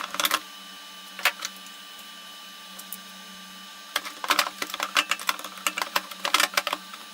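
Clicks and light knocks of small metal watchmaker's-lathe parts being handled and laid into their wooden crate: a few single clicks early, then a quick run of rattling clicks over the last three seconds, over a low steady hum.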